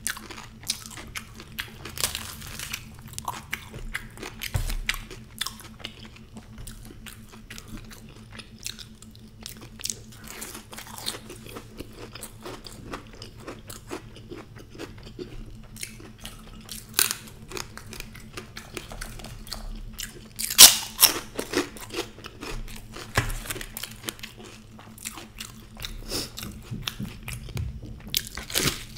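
Close-miked chewing and crunching of deep-fried puri and samosa, with many short crisp bites and mouth sounds throughout and a louder burst of crunching about two thirds of the way in.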